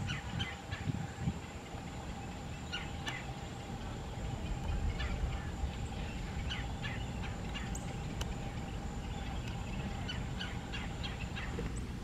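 Songbirds chirping and calling, many short chirps scattered throughout, over a low rumble.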